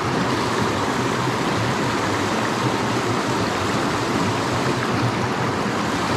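Small rocky mountain creek running over boulders and small cascades: a steady, even water sound.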